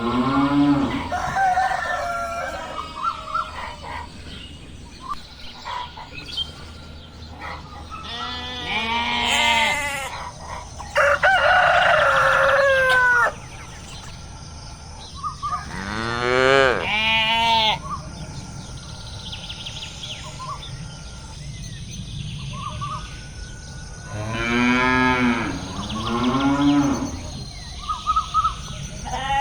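Cattle mooing, a long call repeated about every eight seconds, with chickens calling in between.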